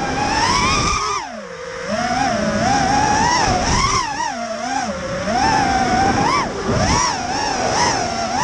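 Racing quadcopter's four T-motor F60 III 2500kv brushless motors and propellers whining, heard from the camera on the drone itself. The pitch wavers up and down several times a second as the throttle is worked through turns and gates, with a deep dip about a second in before it climbs back.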